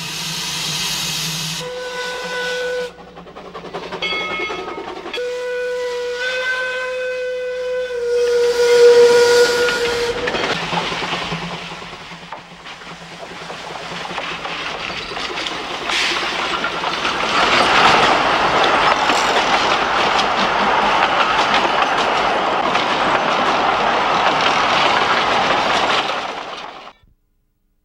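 Steam locomotive: a hiss of steam, then several blasts on its steam whistle over the first ten seconds. The train's running noise follows, steam exhaust and wheels on rail, growing louder about halfway through and cutting off suddenly near the end.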